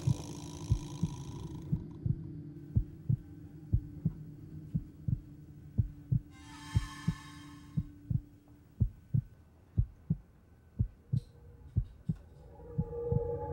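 Heartbeat sound effect: low, regular thumps about two a second, over a faint steady drone that fades out about two-thirds of the way through. A short swell of hiss-like noise comes about six seconds in.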